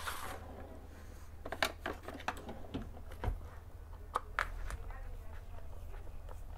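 Screwdriver working at the heel screws inside a leather shoe: scattered small clicks and scrapes of the tip on the screws and of the shoe being handled, over a low steady hum.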